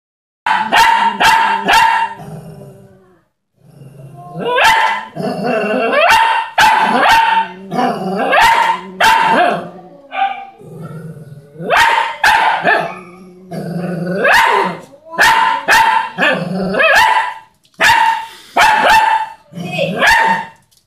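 A dog barking repeatedly in quick runs of several barks, growling low between them.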